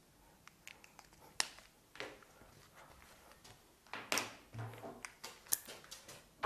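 Faint clicks and taps of whiteboard markers being handled and swapped, with a cap pulled off and clicked, plus short scratchy strokes of a marker on the whiteboard. The clicking is busiest a little past halfway.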